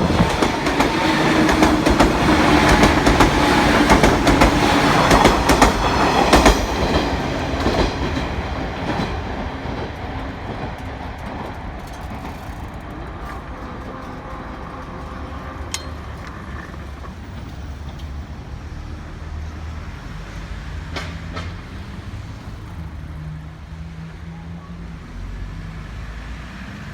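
103 series electric train running past, its wheels clicking over the rail joints; loud for the first seven seconds or so, then fading away.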